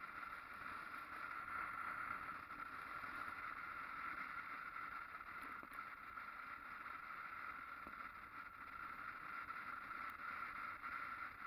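Steady, muffled rush of wind and road noise picked up by a camera on a moving motorcycle, with no clear engine note.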